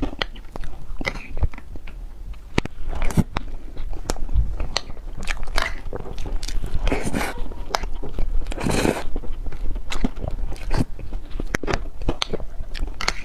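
Close-miked eating: biting into and chewing crunchy dessert, with many sharp crisp crunches and a few longer wet chewing bursts.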